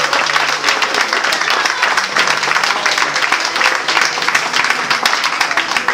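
A crowd of guests applauding, with dense, steady clapping.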